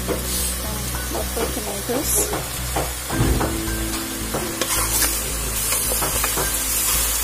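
Chicken pieces sizzling in a hot metal pot while being stirred with a wooden spatula, with scraping and clattering against the pot.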